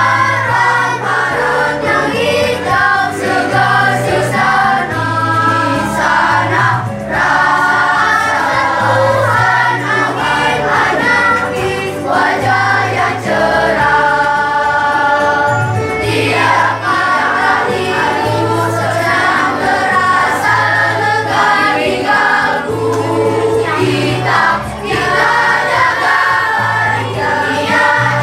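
A children's choir singing over electronic keyboard accompaniment, with a steady stepping bass line under the voices. The choir holds one long chord about halfway through.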